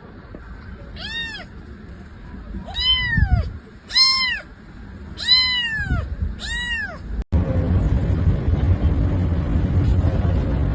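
Cat meowing five times, each call rising and then falling in pitch, about one every second and a half. Near the end the calls give way to a steady low noise.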